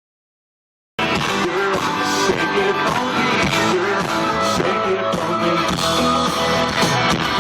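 Live country-rock band playing, with electric guitar prominent and no lead vocal yet. The music cuts in abruptly about a second in, after silence.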